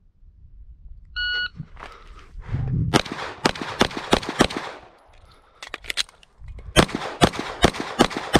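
A shot timer beeps once, then a Glock 17 Gen 5 9mm pistol fires five quick shots, falls silent for about two seconds during a slide-lock reload, and fires five more quick shots.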